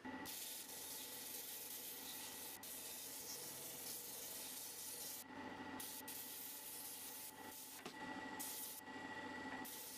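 Benchtop disc sander running while small hardwood pieces are pressed against the spinning sanding disc, giving a steady rasping hiss. In the second half the hiss drops away several times as the wood is lifted off, leaving the sander motor's steady whine.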